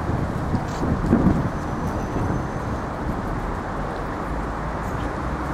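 Wind rumbling on the microphone over a steady low outdoor city rumble, with a brief stronger gust about a second in.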